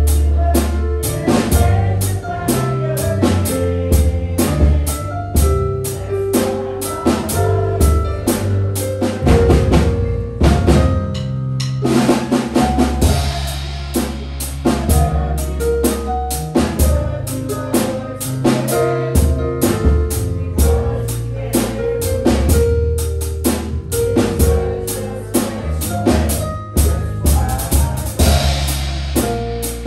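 Instrumental music with a drum kit and bass guitar keeping a steady beat under pitched instrument notes.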